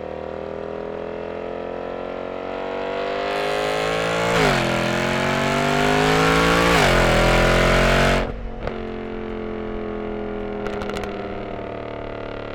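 2007 Mercedes-Benz E63 AMG's 6.3-litre M156 V8 with its exhaust resonators deleted, accelerating: the engine note climbs, drops sharply at two upshifts about four and a half and seven seconds in, and climbs again. About eight seconds in it falls away abruptly and levels off quieter and steady.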